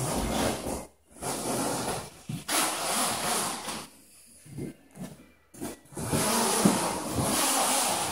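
Plastic zipper on a PVC tarpaulin gazebo wall being pulled shut, with the stiff sheet rubbing against the wooden post, in several long pulls with short pauses between.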